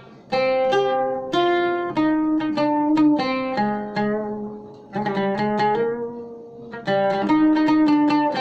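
Arabic oud played solo with a plectrum: a melody of single plucked notes, with notes left to ring and fade around the middle and quicker repeated notes near the end.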